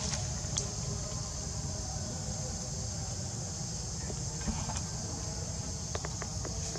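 Steady high-pitched buzzing of an outdoor insect chorus, with a low rumble underneath and a few faint clicks near the end.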